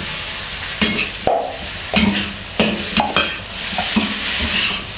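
Fried rice sizzling in a cast iron wok while a metal spatula stirs and scrapes through it, with a scrape or knock of the spatula about every half second to a second over a steady sizzle.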